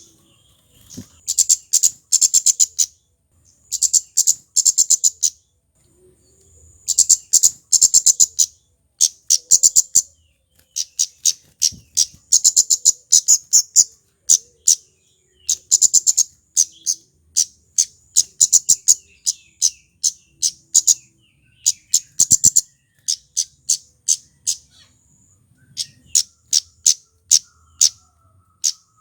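Male flowerpecker (kemade) calling: bursts of rapid, high, sharp chips, each burst about a second long, repeating over and over with short pauses.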